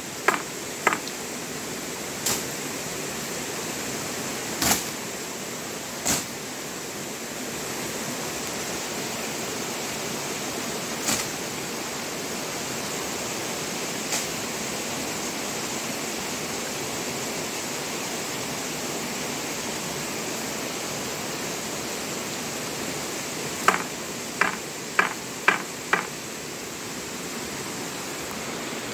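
Steady rush of running water, with scattered sharp clicks and taps and a quick run of them near the end.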